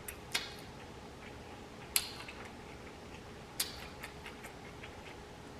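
Quiet close-miked chewing with four sharp, short smacking clicks from the mouth, spread over the first four seconds.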